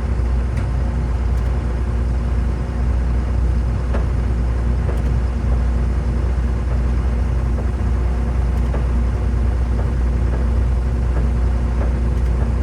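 Engine of the machine lifting the forklift by a chain, running steadily with a deep hum, heard up close from the operator's seat.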